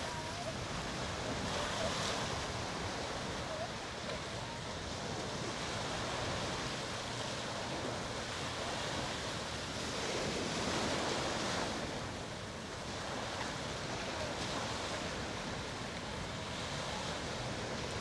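Ocean surf breaking and washing up the beach, swelling about two seconds in and again around ten to twelve seconds in.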